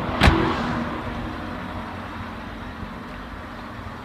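Car engine idling steadily with no knock to be heard, the knock gone after a treatment with Suprotec oil additive. A single sharp thump about a quarter second in is the loudest sound.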